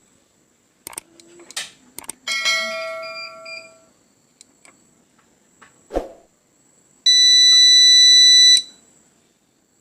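A few clicks and a short ringing metallic note, a thump, then a UPS's buzzer sounds one loud steady electronic beep lasting about a second and a half, over a faint high whine. The UPS is running on a substitute 12 V battery.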